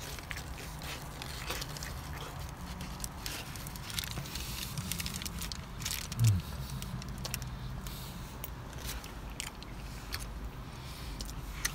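A person chewing a mouthful of breakfast burrito, with many small wet mouth clicks. A brief low hum of a voice comes about halfway through and is the loudest moment.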